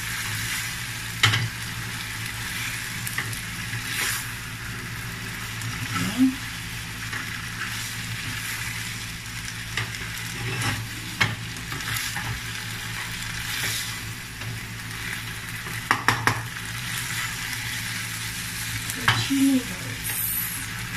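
Udon noodles and kimchi sizzling steadily in a nonstick frying pan while being stirred and tossed with a slotted spatula, with a few sharp knocks of the spatula against the pan.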